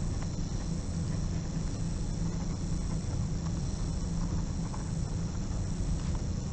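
A pen writing on paper: faint, irregular scratches of the strokes over a steady low hum and hiss.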